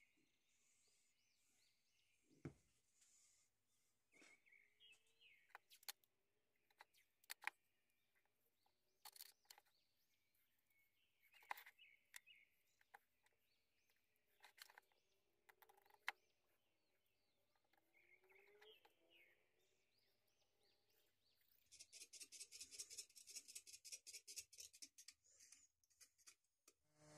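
Near silence: faint bird chirps in the background and a few soft clicks. Near the end come a few seconds of rapid, faint crackling.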